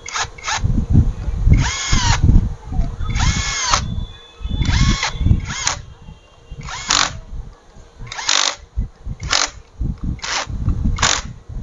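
Handheld electric wrench run in about a dozen short bursts, its motor whine rising and falling in the longer ones, as it drives down the clutch spring bolts on a Bajaj Avenger 220's clutch pressure plate.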